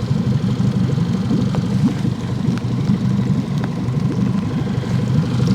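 Small outboard kicker motor running steadily at low speed, smooth-running on freshly cleaned spark plugs. A few faint ticks of rain fall over it.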